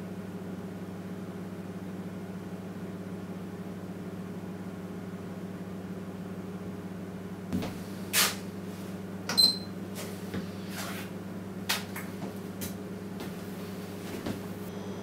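Steady low hum, and from about halfway a handful of short knocks and clicks, as of things being handled and set down on a work surface. The loudest click carries a brief high ping.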